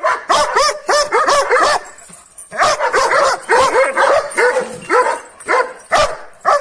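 Kangal-type shepherd dog on a chain barking frantically in a fast string of barks, with a short pause about two seconds in before the barking starts again.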